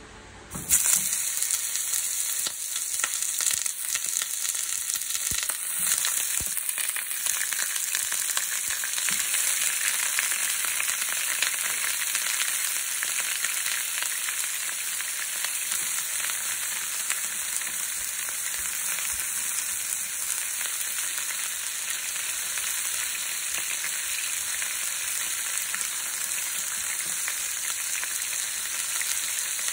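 Chicken leg quarters hitting hot oil in a nonstick frying pan: a sizzle starts suddenly about a second in, with a few knocks over the first several seconds, then settles into the steady high sizzle of pan-frying.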